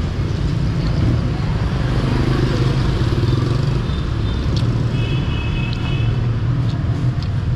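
Steady street traffic, mostly motorbikes and cars passing close by, with a few light clinks of a metal spoon against a plate.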